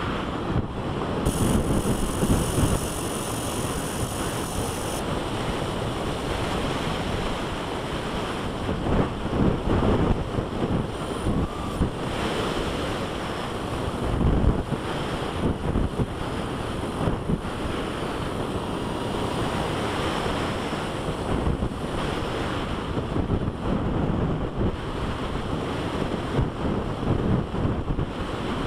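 Airflow rushing and buffeting over an action camera mounted on the fuselage of an electric RC sailplane in flight, rising and falling in gusts. A thin high whine sounds for a few seconds near the start.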